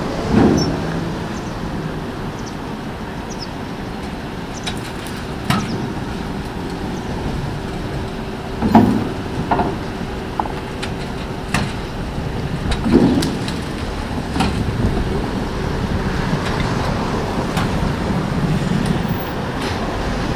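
Tram's steel wheels rolling slowly over temporary rails laid on wooden blocks, used for moving the car between a trailer and the track. Three heavy clunks and several lighter knocks and sharp metallic clicks ring out as the wheels cross the rail joints, over a steady hum.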